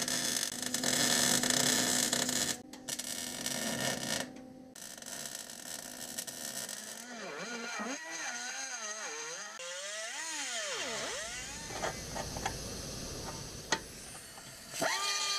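MIG welder arc crackling and buzzing as steel plates are welded onto a rear suspension arm, in spurts that stop about four seconds in. A quieter stretch follows with a wavering, gliding pitched sound.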